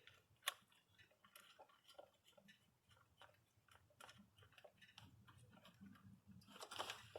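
Faint scattered clicks and taps of small metal nuts being handled and threaded by hand onto the ignition coil studs of an engine, with one sharper click about half a second in and a brief rustle near the end.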